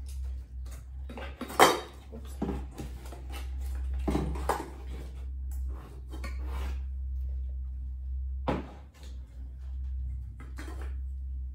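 A stainless steel saucepan and its lid being handled while unpacked: scattered metal clinks and knocks, the sharpest about a second and a half in, over a steady low hum.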